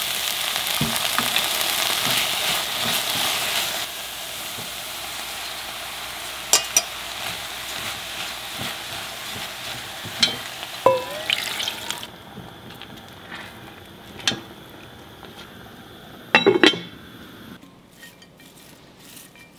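Food sizzling in a hot pan, loudest in the first few seconds, with a few sharp clinks of a utensil against the cookware. The sizzle stops about twelve seconds in, leaving scattered clinks and taps.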